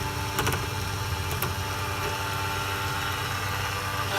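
Key-cutting machine's motor running steadily with the cutter spinning, with a few sharp clicks in the first second and a half.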